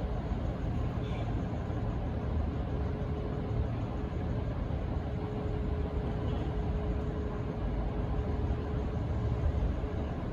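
Diesel locomotive engine running steadily, a continuous low rumble with a faint steady tone through the middle; no horn sounds.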